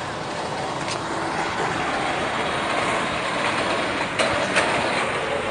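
Steady rushing noise of a moving vehicle, its engine and the wind on the microphone blending into an even hiss, with a few light clicks about a second in and again about four seconds in.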